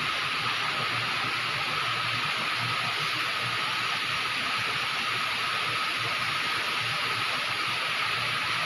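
Heavy rain falling, a steady hiss without a break.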